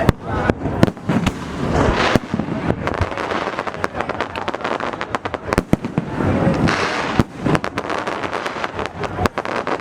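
Fireworks display heard close to the launch site: many sharp bangs and cracks of shells bursting in quick succession, loud and continuous.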